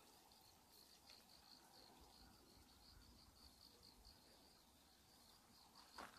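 Near silence: faint insects chirping in dry grass, a high, pulsing trill repeating steadily. A brief louder noise comes right at the end.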